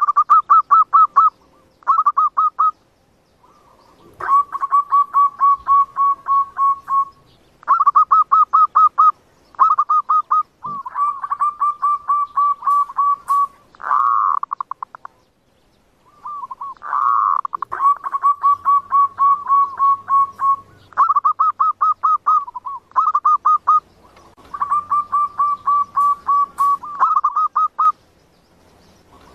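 Zebra doves (perkutut) cooing: runs of rapid repeated staccato notes, one run after another with short gaps, and a longer pause about halfway through.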